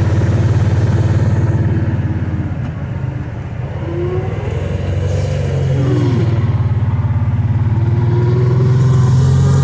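Kawasaki Teryx side-by-side's V-twin engine running while driving, easing off briefly about a third of the way in, then pulling again.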